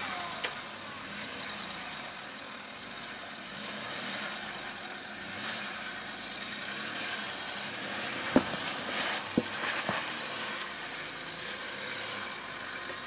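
Land Rover Discovery 3 engine running at low speed as the vehicle crawls over a rocky step, with a few sharp knocks about eight to ten seconds in.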